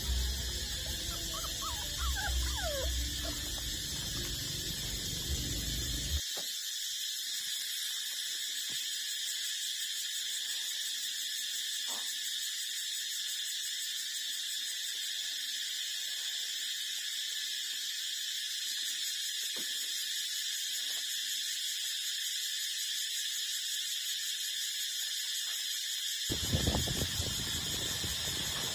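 A steady high-pitched whine made of several tones throughout, with a few short rising and falling puppy whimpers in the first three seconds.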